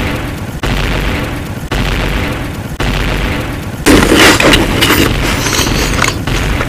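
A boom sound effect repeating about once a second, each a sudden hit that dies away. About four seconds in, a louder, dense jumble of other clip sounds comes in on top.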